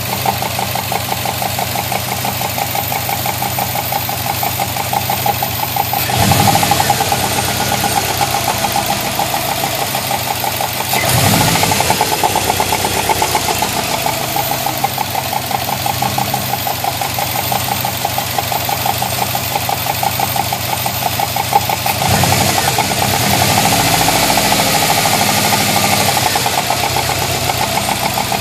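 Subaru WRX flat-four engine running at idle with a fast, regular knock, revved briefly three times.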